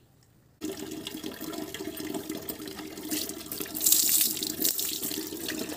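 Water poured from a plastic bucket over a puppy, splashing onto a concrete floor. It starts abruptly about half a second in and grows louder, with the heaviest splashing around four seconds in.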